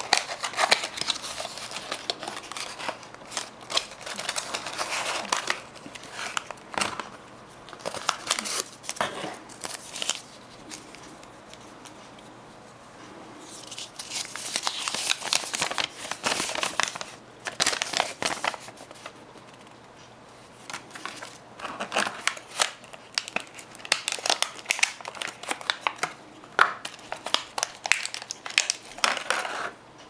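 Paper and thin cardboard packaging handled and unfolded by hand: irregular rustling and crinkling with sharp clicks and taps, easing off twice for a few seconds, with a longer smooth rustle in the middle as a paper leaflet is opened out.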